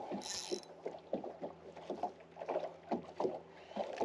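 Choppy water slapping and lapping against the hull of a small skiff in irregular knocks, with one brief high hiss near the start.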